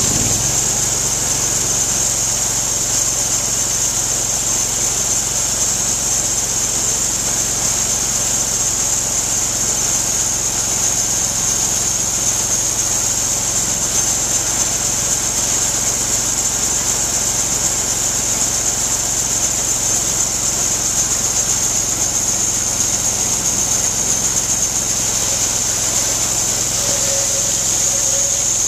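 Bandsaw sawmill's engine running steadily just after being started, with a constant high-pitched whine over it.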